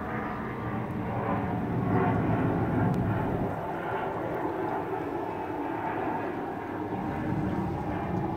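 Steady low rumble of a distant engine, swelling slightly about two seconds in.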